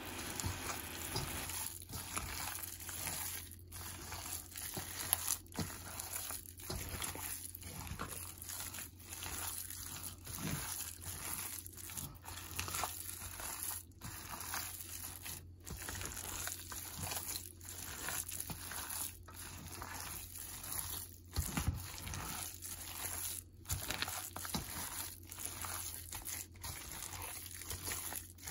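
Wet squelching and squishing of a bare hand kneading and squeezing sticky minced pork, bound with egg and cornstarch, in a stainless steel bowl. The squelches come in an irregular, continuous run.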